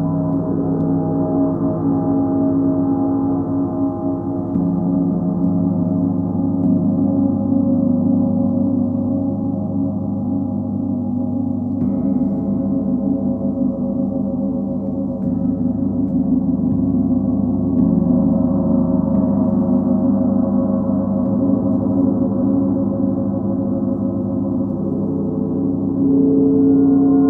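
Large planetary gongs (a Sun, Full Moon and Earth set) played continuously with soft strokes, a sustained wash of many overlapping ringing tones. Fresh strokes every few seconds shift the mix of pitches, and the sound swells louder near the end.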